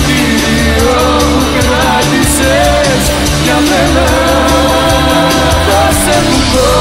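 A rock song played by a full band, with a steady beat under a bending melodic line from voice or lead guitar.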